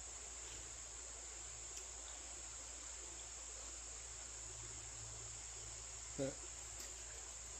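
Steady, high-pitched chorus of insects. About six seconds in there is one brief, low voice sound.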